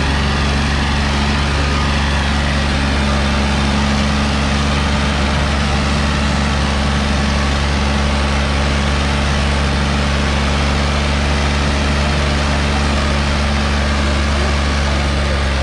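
John Deere 5045 tractor's diesel engine running steadily at an even pitch, pulling a 16-disc harrow.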